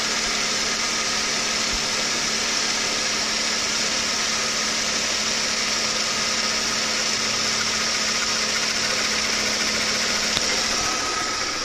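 Mercedes-Benz W220 S350's 3.7-litre V6 idling steadily, heard from above the open engine bay, with a steady high-pitched hiss over the engine note.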